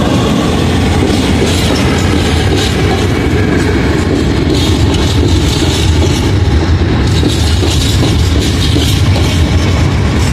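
Open-top four-axle freight wagons of a freight train rolling past on the rails behind a diesel shunting locomotive: a steady low rumble with the clatter of wheels on the track.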